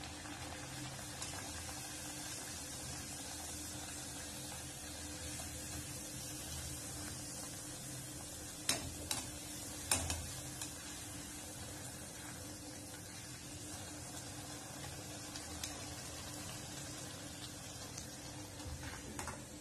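Poori deep-frying in hot oil in a steel kadhai, a steady sizzle. A few sharp clinks of a steel slotted skimmer against the pan come about halfway through.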